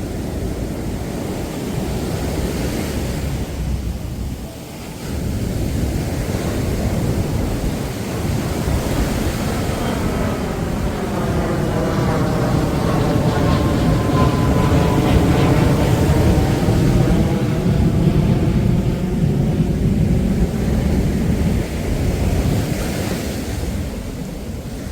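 Surf breaking on the shore with wind on the microphone, while a low-flying airplane passes over, swelling to its loudest about halfway through and fading again.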